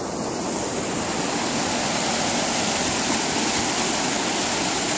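River water pouring over a concrete spillway into churning white water: a steady rushing of falling water, growing a little louder in the first second or two.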